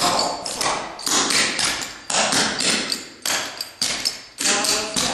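Clogging shoes' metal taps striking a hardwood floor as a dancer performs a clogging step, sharp taps in quick rhythmic clusters.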